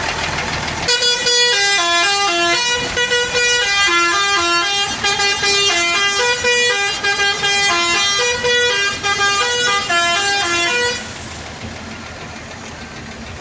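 Bus telolet horn, a multi-tone musical horn, playing a quick stepping melody for about ten seconds over the bus's engine. It starts about a second in and stops with about two seconds to go, leaving only the engine.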